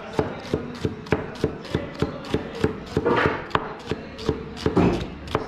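Kitchen knife slicing red onions on a cutting board, the blade knocking on the board in a steady rhythm of about three strokes a second.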